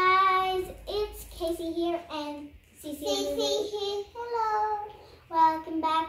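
A young child singing without accompaniment, in short phrases with held notes.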